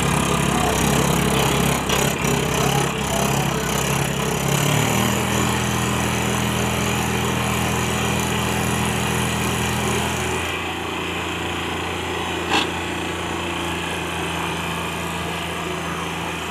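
Diesel tractor engines running under load as a Mahindra 275 DI tows a Mahindra 575 DI stuck in mud by rope. The engine speed steps up about five seconds in and drops back about ten seconds in, with a single sharp click later on.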